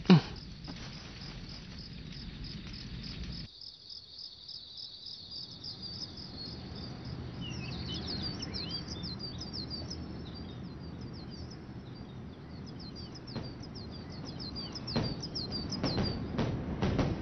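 Ambient sound effects of an anime: crickets chirring steadily, cutting off suddenly after about three and a half seconds, then birds chirping with quick rising and falling calls. Near the end a few sharp knocks join in.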